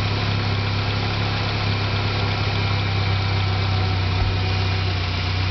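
Ford 2.5 L four-cylinder engine of a 2001 Ranger idling steadily with a constant low hum. The engine is kept running while the cooling system is refilled with antifreeze and bled of air.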